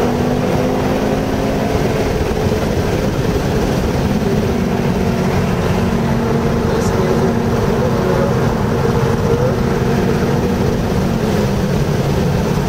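Car engine running at speed, heard from inside the cabin over heavy tyre and road noise; its note eases down slightly over the first few seconds, then holds steady.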